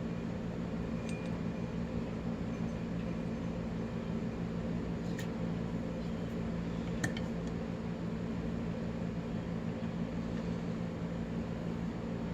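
A steady low hum throughout, with a few faint metallic clicks of small padlock parts being handled during disassembly: about a second in, about five seconds in, and a sharper one about seven seconds in.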